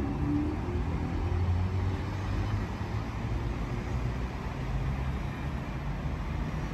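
Steady low rumble of vehicles with a low droning hum.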